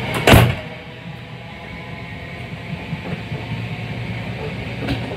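Class 323 electric multiple unit running at speed, heard from inside the carriage: a steady rumble of wheels on track with a low hum. About a third of a second in, a short, loud rush as another train passes close alongside.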